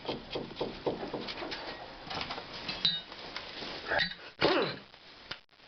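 Small metal clicks and clinks as nuts are started onto a strut's lower mounting bolts by hand, with a short gliding squeak about four seconds in.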